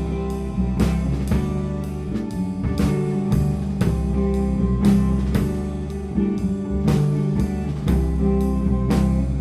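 Instrumental rock band playing without vocals: a drum kit keeps a steady beat under a bass guitar line and electric guitar, in a rough live mix.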